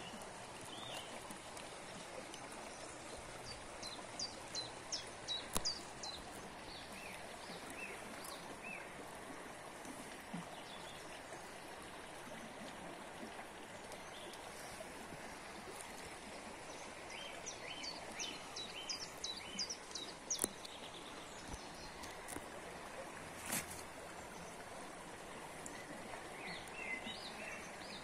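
Shallow stream flowing over stones with a steady babble of water, and small birds chirping in short runs of quick high notes, busiest a few seconds in and again past the middle.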